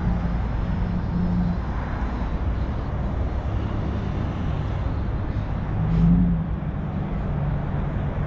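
Street traffic: a steady hum of engines and tyres from passing vehicles, swelling briefly about six seconds in as one passes close.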